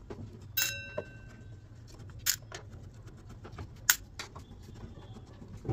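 Scattered sharp metallic clicks of a screwdriver and screws working the back panel of a subwoofer cabinet, about five in all. One click, about half a second in, rings briefly like metal struck on metal.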